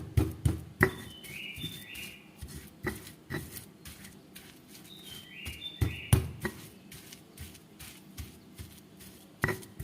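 A songbird repeating a short high phrase of a few stepped notes, twice, about four seconds apart, over irregular knocks and taps from kitchen work.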